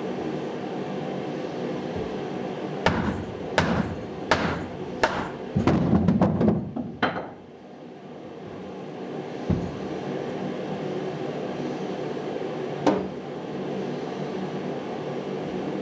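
Hammer blows on wood: a run of about six strikes roughly 0.7 s apart a few seconds in, then a single strike later. A steady hum runs underneath.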